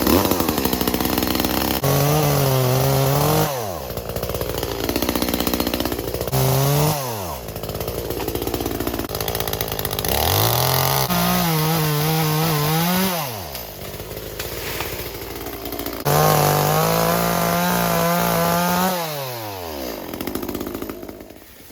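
Chainsaw cutting a young blue gum tree. It revs to full throttle in four bursts, the last and longest near the end, and drops back to a lower run between them.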